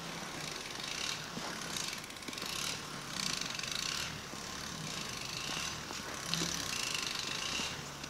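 Footsteps crunching on packed snow at a steady walking pace, about one crunch a second.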